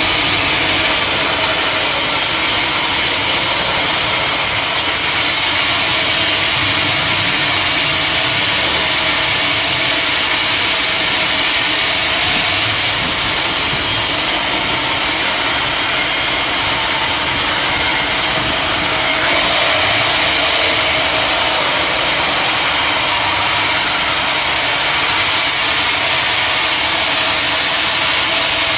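Sawmill machinery running steadily: its motor and saw make a loud, even noise without breaks.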